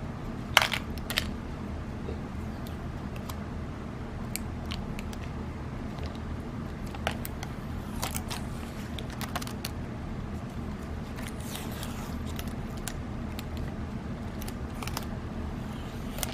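Metal airgun pellet tin being handled while its seal tape is peeled off: scattered sharp clicks and taps, the loudest about half a second in, with a faint rasp of tape partway through, over a steady low hum.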